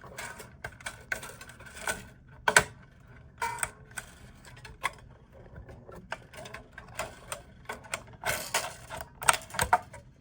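Irregular clicks, clinks and knocks of small metal parts as a guitar's bridge is taken off its posts and swapped, with a sharp knock about two and a half seconds in and a run of clicks near the end.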